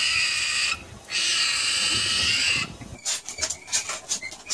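Striped skunk screaming: a long, shrill, high-pitched scream that breaks off briefly just under a second in, then carries on until past two and a half seconds. After that, a different skunk makes a string of short chirps and clicks.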